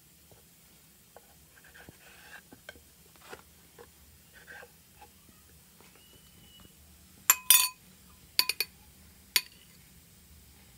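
A metal spoon clinking against a cut-glass bowl several times, loud and ringing, between about seven and nine and a half seconds in, while scooping vegetable filling. Before that, soft taps and rustles of a wooden rolling pin and pastry sheet on a wooden board.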